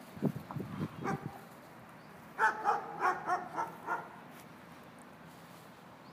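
A dog barking in a quick run of about six short barks a couple of seconds in, with a few dull low thumps in the first second.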